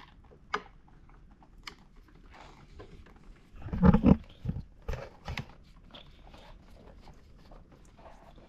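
Screwdriver working the screws along the metal rail of a convertible top frame: scattered small clicks and scrapes of metal, with a louder rasping scrape about four seconds in.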